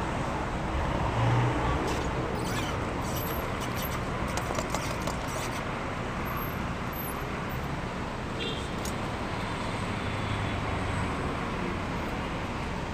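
Steady outdoor background noise like road traffic running in the distance, with a few faint clicks between about two and five seconds in.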